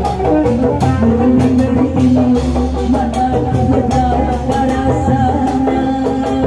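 Sundanese kuda renggong band music: drums and melodic instruments playing a medley with a steady beat.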